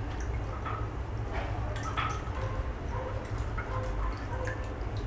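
Water dripping and trickling from a wet cloth being wrung out into a glass bowl of water, in scattered drips and splashes over a steady low hum.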